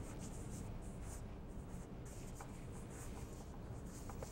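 Bristle paintbrush stroking oil paint onto a stretched canvas: a run of short, soft, irregular brushing swishes.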